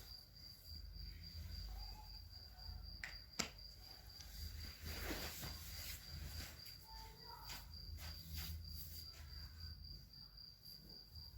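A cricket chirping in an even, fast-pulsing high trill, over a low hum, with a few faint clicks and rustles of handling; a sharp click comes a little over three seconds in.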